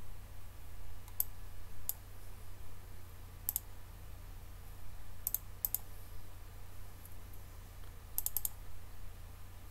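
Computer mouse clicking: single clicks spaced a second or two apart, then a quick run of three or four clicks near the end, over a steady low hum.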